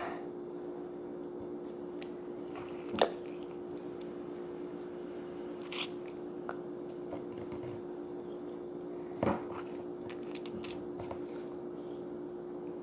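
A steady low hum with a few scattered short clicks or handling noises; the loudest comes about three seconds in and another a little past nine seconds.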